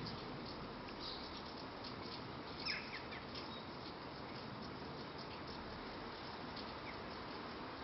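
Light rain ending, with a steady hiss of rainfall and many small drips ticking. A bird gives a brief chirp about two and a half seconds in, and a fainter one near the end.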